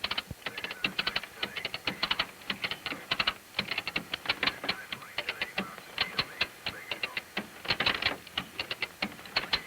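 Hand-operated come-along's ratchet being worked, its pawl giving rapid, irregular runs of metallic clicks as the cable is drawn tight to pull a car seat loose.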